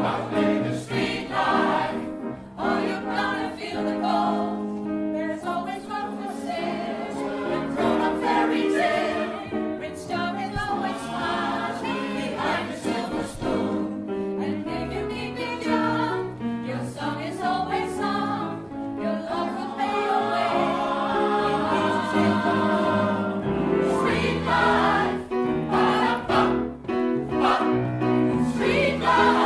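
Mixed choir singing close harmony, with grand piano accompaniment.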